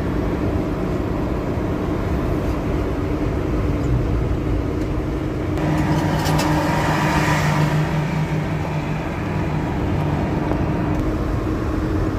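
Steady engine and road noise of a moving vehicle heard from inside, growing louder for a few seconds in the middle.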